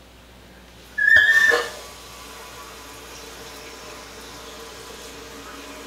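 Water supply turned on at a newly installed toilet: a short, loud high-pitched whistle about a second in as the shutoff valve opens, then the steady hiss of the tank filling through the fill valve.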